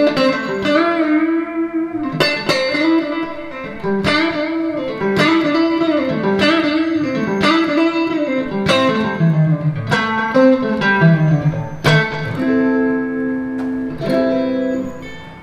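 Squier Stratocaster electric guitar playing blues licks built on string bends: picked single notes slide up in pitch and back down. Near the end it settles on a chord held for a couple of seconds.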